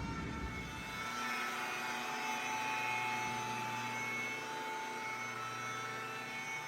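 A steady motor whir with a few high steady tones, the kind a running shop machine such as an air tool, compressor or shop vacuum makes. Its low rumble drops away about a second in.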